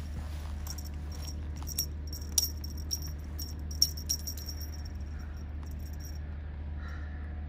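Light metallic jingling and clicking, irregular, for about five seconds before it stops, over a steady low rumble.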